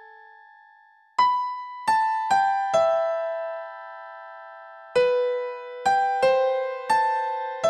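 Background music: a slow keyboard melody of single piano-like notes, each struck and left to fade, beginning about a second in.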